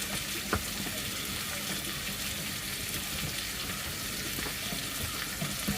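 Food sizzling steadily on a hot pan, with a couple of light clicks, about half a second in and near the end.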